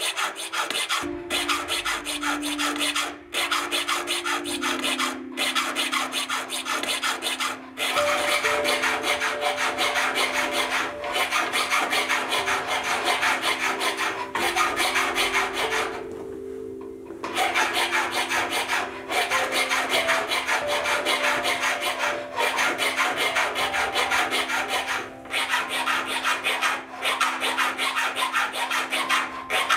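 Jeweller's hand file rasping over a 14k gold ring held on a wooden bench pin, in quick back-and-forth strokes with short pauses, the longest about a second past the middle.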